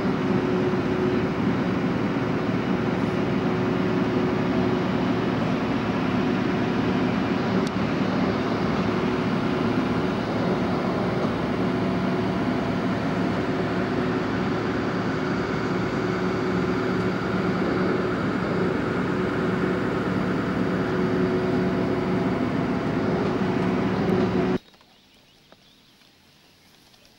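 Small car ferry's engine running steadily during the crossing, a loud even drone with a low hum; it cuts off suddenly about 24 seconds in, leaving only faint outdoor background.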